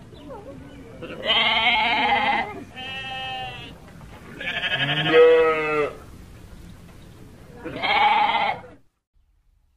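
Young goat kid bleating four times, each call about a second long and wavering in pitch; the third call is the loudest.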